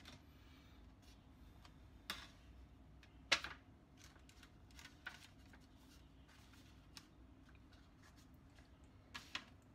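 Faint scattered taps and light crinkles as an aluminium foil loaf pan is set on a plastic cutting board and bread dough is handled into it; the loudest tap comes about three seconds in, with a quick double tap near the end.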